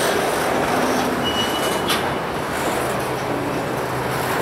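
Kansas City Southern freight train rolling by, a steady rumble and rush of wheels on rail, with a brief thin high wheel squeal about a second in that ends in a click.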